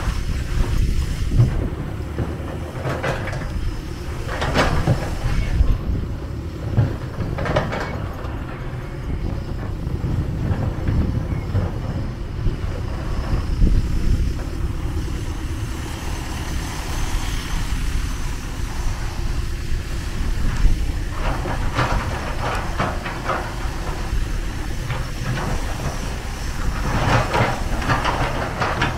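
Kobelco SK250 long-reach excavator's diesel engine running with a steady low rumble while the machine works, with short rattling clanks from time to time, in a cluster near the end as the boom and bucket lift.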